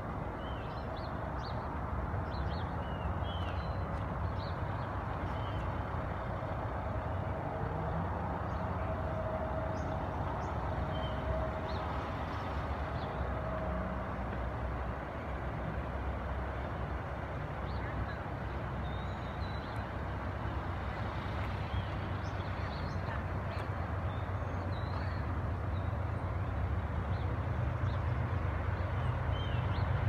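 Outdoor wind noise on the microphone with a low rumble that slowly grows toward the end as a distant passenger train approaches, and faint bird chirps here and there.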